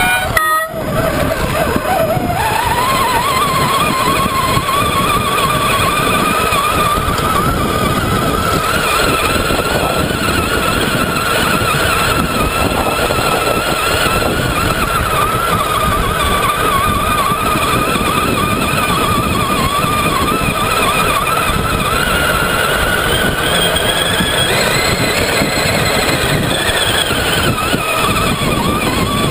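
Traxxas Summit RC truck's electric motor and geared drivetrain whining as it drives over sand, with a rumbling noise beneath. The whine climbs as the truck speeds up about two seconds in, holds with small wavers, then climbs again near the end before easing back.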